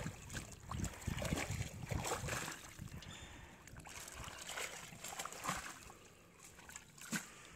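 Water splashing and dripping from a wet cast net full of mud and fish as it is set down on a raft, with irregular small wet slaps and ticks. Louder over the first few seconds, then quieter, with one sharper tick near the end.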